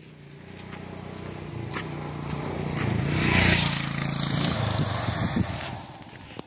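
A small motorcycle engine passing by, getting louder as it comes close and then fading as it rides away down the road.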